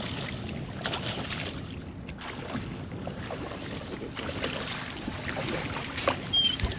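Wind buffeting the microphone over choppy water lapping at a boat, with a short high squeak near the end.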